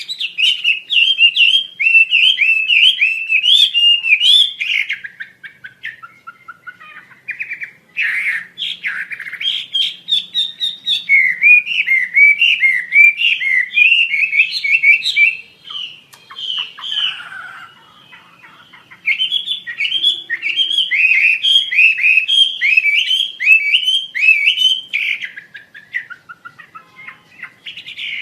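Wambi Asia songbird singing in fast runs of sharp, bouncing chirps, each run lasting several seconds with brief pauses between, three long runs in all.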